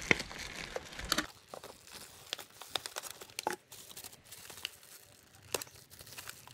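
Clear plastic packaging bags crinkling and a cardboard box being handled as parts are lifted out: scattered crackles and rustles, busier in the first second or so, then sparser.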